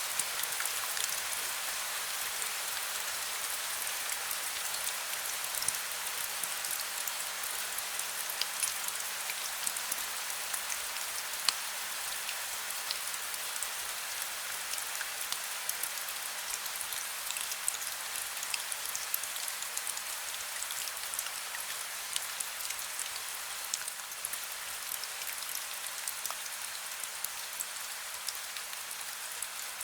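Steady rain falling, with many individual drops ticking on a hard surface over an even hiss. A faint low steady hum lies beneath.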